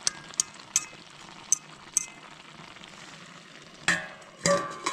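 A metal cooking utensil clinking and scraping against a pot: a few sharp taps in the first two seconds, then two louder clatters near the end. Underneath is the faint steady simmer of a watery shrimp-and-mushroom stir-fry that the low flame cannot bring to a proper fry.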